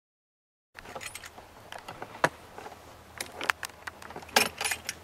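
Metal parts of a weather station being handled and fitted together by hand: a run of sharp clicks, clinks and knocks that starts about a second in, after silence.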